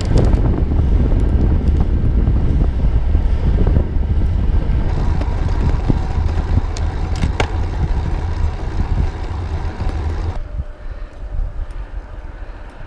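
Wind buffeting the microphone of a camera riding on a moving bicycle: a loud, steady low rumble with a few sharp clicks and rattles. It eases off about ten seconds in.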